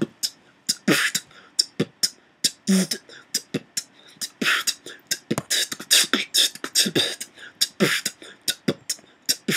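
Beatboxer performing a dubstep-drop pattern: a dense run of sharp mouth clicks and snare-like hisses, several a second, with short low bass hits mixed in.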